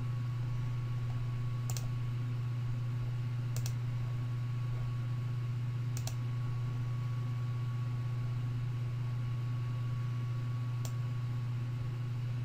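Four isolated clicks, spaced a few seconds apart, over a steady low electrical hum.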